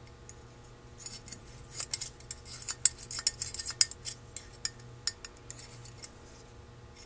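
Light metallic clicking and tapping as a wire pick probes the check-ball well of a Holley 2280 carburetor's cast body, trying to free a stuck check ball. The clicks come quickly and irregularly for a few seconds, then thin out as the body is turned over.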